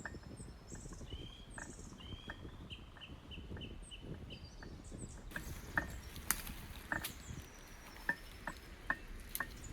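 Small birds chirping, with a quick run of repeated short notes a few seconds in and some higher whistles. Underneath are a low crunching rustle and scattered light clicks.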